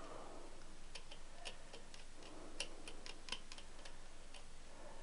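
Faint, irregular light clicks and ticks of hand tools and small parts being handled on the engine, roughly two a second.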